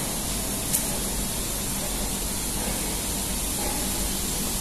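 Steady hiss of background room noise with a low hum, and one faint tick a little under a second in.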